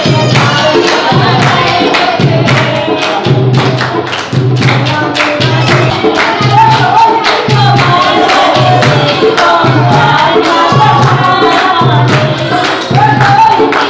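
Women singing together over a dholki hand drum playing a steady low beat, with hand-clapping along to the rhythm.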